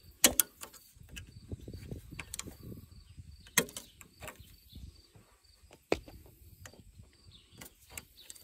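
Small metal pick scraping and clicking in a tractor's fuel-line port and against the steel fuel lines while an old rubber sealing washer is dug out. There are a few sharp metallic clicks, the loudest just after the start, about three and a half seconds in and about six seconds in, over soft handling rustle.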